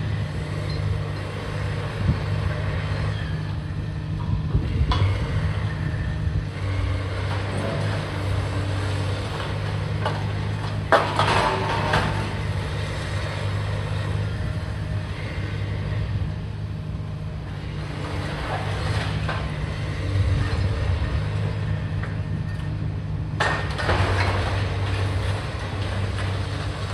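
A diesel engine of heavy demolition machinery runs at a steady low hum. Several louder noisy stretches break over it, the loudest about eleven seconds in and another starting near the end.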